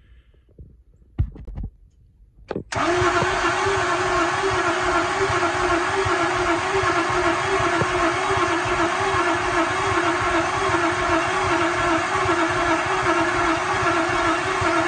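A couple of knocks, then a 2006 International 4200 dump truck's diesel engine catches after a brief crank about three seconds in and runs steadily, loud close to the open engine bay.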